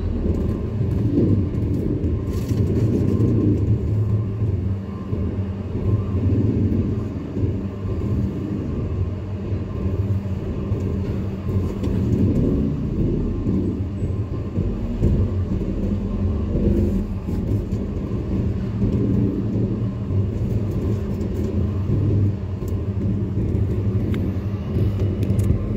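Steady low engine rumble with a constant hum on a ferry's enclosed car deck, heard from inside a car idling in line behind other vehicles.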